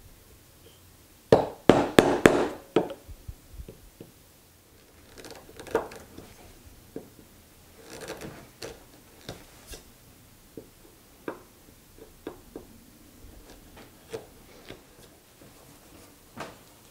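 A mallet striking a chisel to chop into a Douglas fir 4x4 along a scribed line: a quick run of about half a dozen sharp strikes about a second in. Then softer clicks and scrapes of the chisel paring the end grain, with scattered tool knocks on the workbench near the end.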